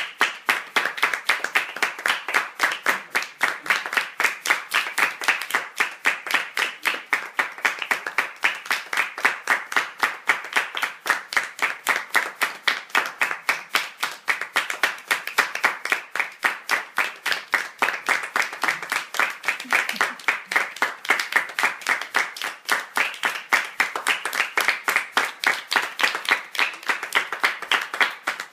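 A small group of about ten people, adults and children, applauding together: dense, steady hand clapping without a break.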